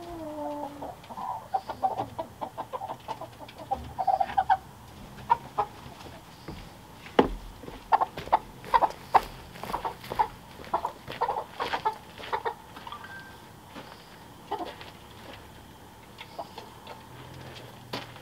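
Chickens clucking in their mobile coop: a string of short calls that opens with a longer call sliding down in pitch, grows busiest around the middle and thins out toward the end.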